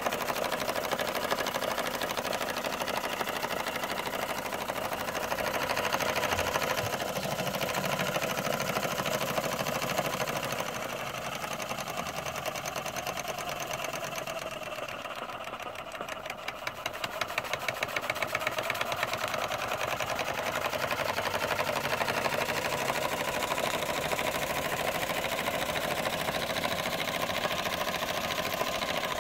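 1925 Bing toy steam engine running on live steam, its small cylinder and flywheel turning fast with an even, rapid chuffing and clatter. It turns a little quieter for a few seconds around the middle, then picks up again.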